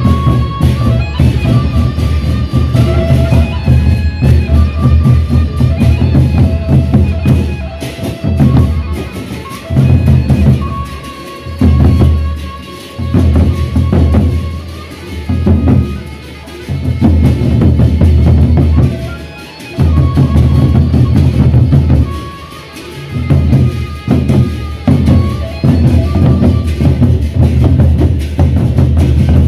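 Lombok gendang beleq ensemble playing: large double-headed barrel drums beaten in a fast, dense rhythm, with a held melodic line above them. The drumming thins out briefly several times in the middle of the passage, then comes back in.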